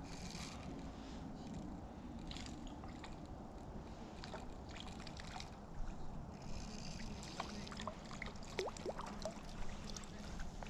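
Faint small-stream ambience: water trickling under a low rumble of wind on the microphone, with scattered light clicks and a few brief faint chirps in the second half.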